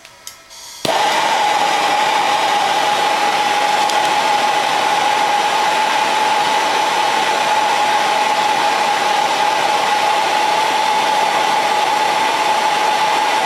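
Heat gun switched on about a second in and running steadily: a rush of air with a high motor whine, heating a thermocouple probe toward a high-temperature alarm setpoint.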